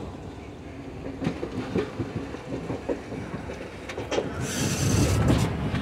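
Express train coach rolling slowly into a station, heard from aboard. Its wheels clack irregularly over rail joints and points. A louder rushing noise builds near the end.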